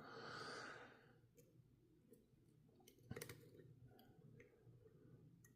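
Near silence with a few faint metallic clicks from picking a Master Lock padlock, the pick and tension wrench working the pins and warding; the clearest is a short cluster about three seconds in.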